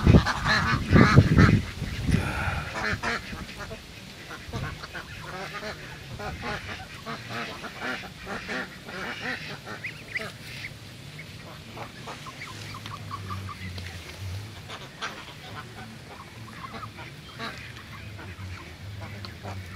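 A mixed flock of domestic laying ducks and Muscovy ducks quacking. The calls are loudest in the first two seconds, then go on softer and scattered.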